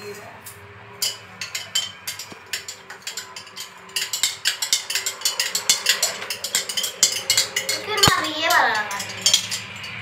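A metal spoon stirring coffee in a glass coffee-machine carafe, clinking against the glass. The clinks are sparse at first, then come quick and irregular and louder from about four seconds in.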